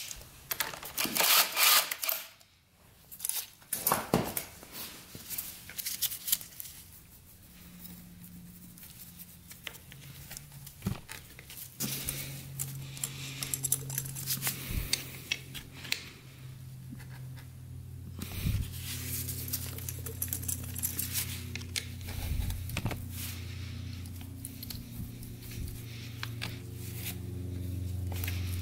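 Hands working a rubber coolant hose onto a motorcycle water-pump outlet and a screwdriver turning a metal worm-drive hose clamp: scattered small clicks, rattles and rubbing. Low steady background music comes in about a third of the way in and grows louder toward the end.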